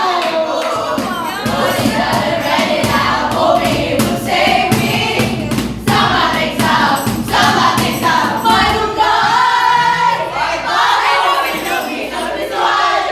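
A group of young people singing together in chorus, loud and lively.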